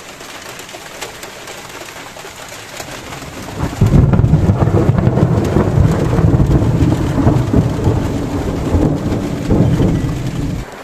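Heavy rain hissing steadily. About four seconds in, a loud rolling thunder rumble breaks in, goes on for about seven seconds, then cuts off suddenly.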